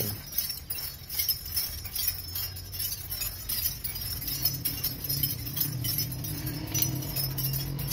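Light metallic clinks and jingling of a spanner and adjusters against the valve rockers of a Massey Ferguson 240's engine as its tappet clearance is set by hand. A steady low hum runs under it, stronger from about halfway.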